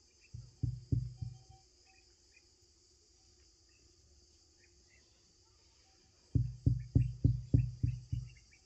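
Dull thumps as a knife is pressed again and again into a plate of flour halva to mark a braided pattern, the plate knocking on the table: a few near the start, then a quicker run of about eight near the end. Crickets chirr steadily underneath.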